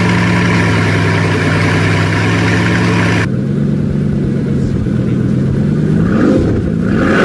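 Bugatti Chiron's W16 engine idling steadily, then revved up briefly twice near the end.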